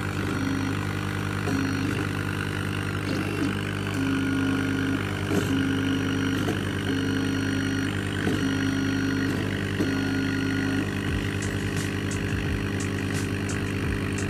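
A desktop 40 W CO2 laser cutter running as it cuts plywood. A steady machine hum runs throughout, and a tone switches on and off every second or so as the head traces the cut lines. A run of light ticks comes near the end.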